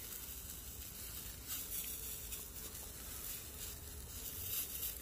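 Faint sizzling of skewered German sausages over a small wood fire in a Bushbox XL stove, with a few light crackles.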